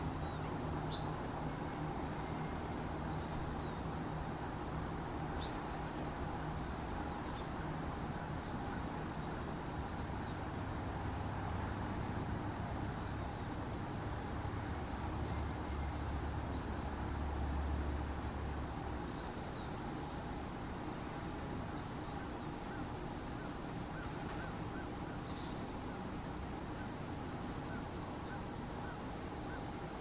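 Outdoor ambience: a steady high insect trill, scattered short bird chirps and whistles, and a low rumble that grows louder toward the middle and drops off a little past halfway.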